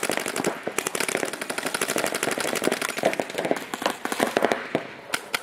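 Paintball markers firing in rapid strings of shots, many a second, with several guns overlapping.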